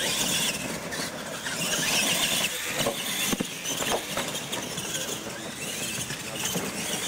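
Radio-controlled monster trucks racing on dirt: a steady run of motor and tyre noise, with a few short knocks as they cross the wooden ramps.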